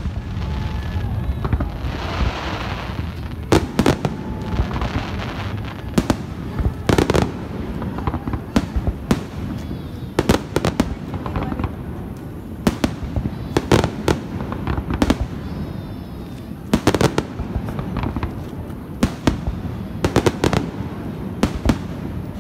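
Aerial fireworks going off overhead: irregular sharp bangs all through, some in quick clusters.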